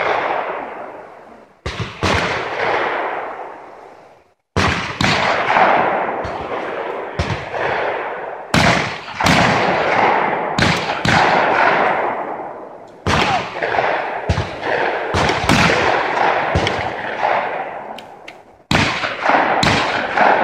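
Shotguns firing at clay targets from several stands: dozens of shots in quick succession, some in pairs close together, each trailing off in a long echo. There is a brief pause about four seconds in.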